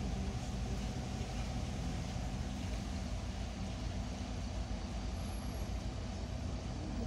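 Cabin noise inside a MAZ-215 articulated city bus on the move: the engine's steady low hum mixed with road and body noise.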